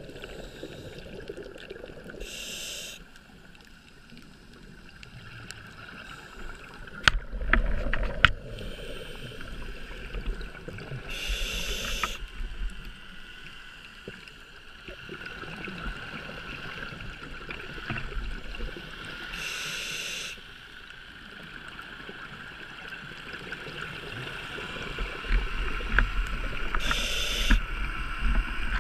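Scuba diver's regulator breathing underwater: a short hiss of inhalation about every eight seconds, with exhaled bubbles gurgling between.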